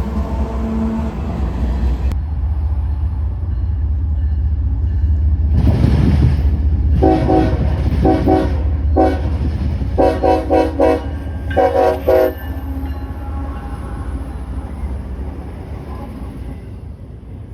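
Train horn giving a horn show: a run of short multi-note blasts in the middle of the stretch, over the steady low rumble of the train.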